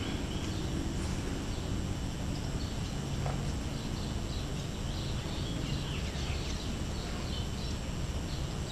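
Outdoor lakeside ambience: a steady low rumble, with faint short high chirps through the middle.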